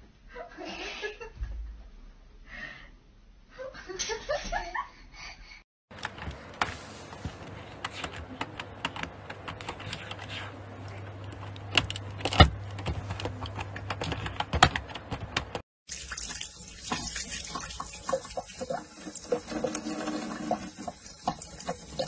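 Computer keyboard keys clicking repeatedly under a cat resting on the keyboard, with one loud click about twelve seconds in. Then a kitchen tap runs in a steady stream of water as a cat drinks from it.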